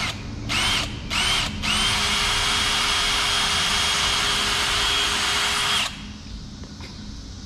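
Cordless drill boring a hole through the rear deck panel of a C6 Corvette: three short trigger pulses with a rising whine, then a steady run of about four seconds that stops about six seconds in.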